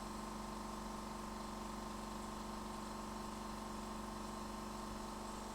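Steady machine hum with a few fixed tones over a faint hiss, unchanging throughout.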